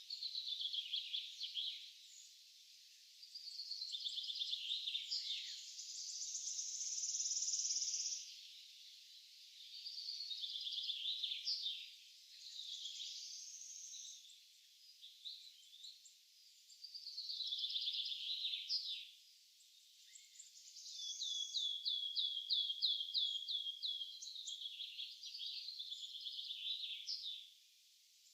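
Songbirds singing in a forest: a string of song phrases, each one to three seconds long with short pauses between, and a quick run of evenly spaced notes about two-thirds of the way through.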